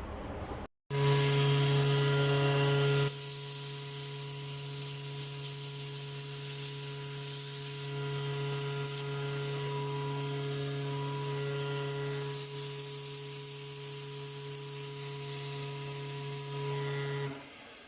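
A machine running steadily with a hum and a strong hiss while motor parts are cleaned. It starts loud after a brief break, settles to a steady level about three seconds in, and stops near the end.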